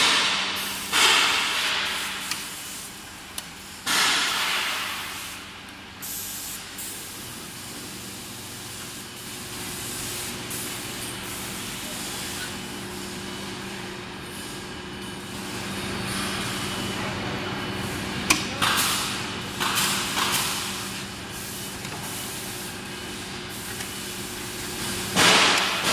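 Steel-framed glass door being swung open and shut by hand: several hissing swishes, each fading over a second or two, with a few sharp clicks. A steady low hum runs underneath.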